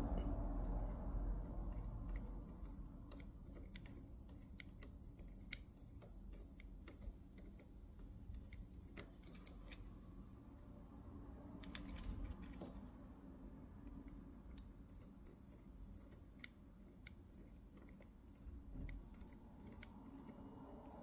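Irregular small clicks and ticks of hand tools and small metal parts being handled during soldering work on a miniature metal scabbard. They sound over a low rumble that fades away in the first few seconds.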